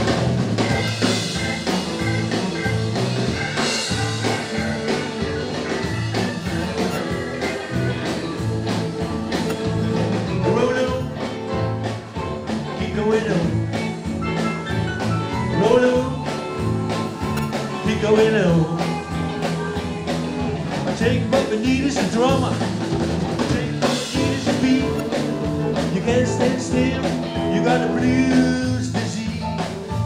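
Live band playing sixties-style rock and roll with a singer over a steady drum beat.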